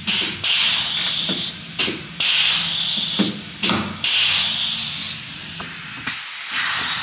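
Pneumatic pop-rivet gun setting rivets into a plastic rocker panel cover: repeated bursts of air hiss, five or six in all, with a few sharp clicks between them.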